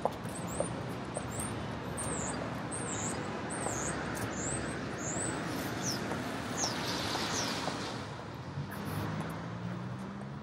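A small bird chirping over and over, short high-pitched chirps about two a second, over a steady wash of city street noise; the chirps stop a little past the middle, and a low hum comes in near the end.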